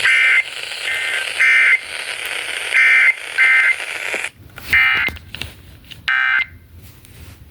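Emergency Alert System digital data bursts over FM radio: about seven short, harsh buzzes, each about a third of a second long and irregularly spaced, the end-of-message signal that closes a severe thunderstorm warning. Radio hiss and crackle fill the gaps between them.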